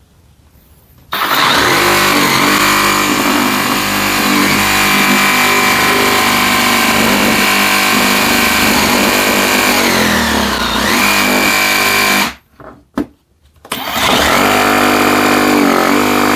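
Parkside Performance PSSAP 2028 A1 20 V cordless reciprocating saw running at full speed with a steady whine. Its pitch dips briefly and recovers about ten seconds in. It stops about twelve seconds in, gives a few short blips, then runs steadily again.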